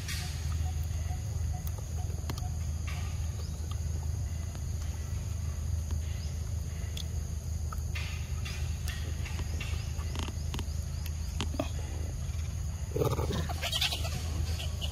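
A long-tailed macaque eating a ripe mango: scattered wet smacks and clicks of biting and chewing over a steady low rumble. A louder, rougher sound comes about thirteen seconds in.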